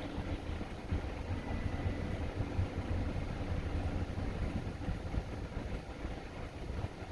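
An engine running steadily, a low continuous rumble with no change in pitch.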